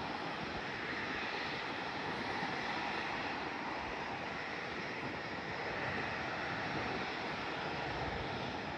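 Boeing 787-10 jet engines running with a steady, even engine noise that does not rise or fall.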